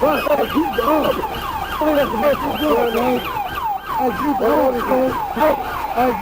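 Police car siren in a fast yelp, its pitch sweeping up and down several times a second without a break.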